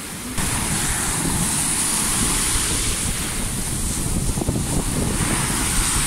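Heavy sea surf breaking and washing up the beach, with wind buffeting the microphone. It gets louder about half a second in.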